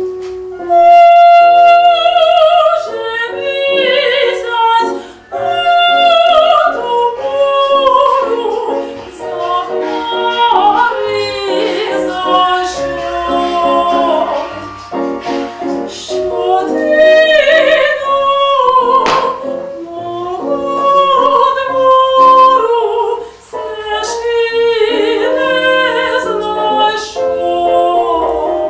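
Classical-style singing, a voice with strong vibrato held on long notes over instrumental accompaniment.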